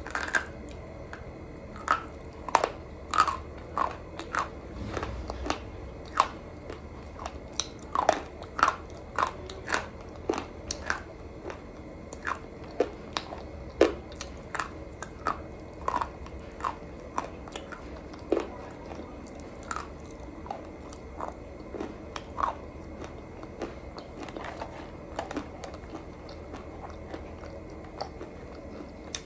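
A person biting and chewing hard, brittle white sticks close to the microphone: a sharp crunchy snap every second or so, with quieter crunching chews between.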